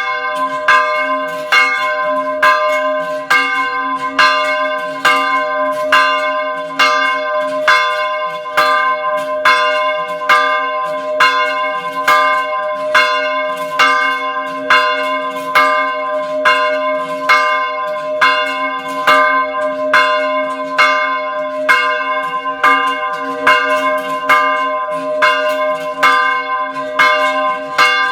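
Small church bell ringing steadily, struck about once a second, each stroke ringing on under the next with a low hum beneath.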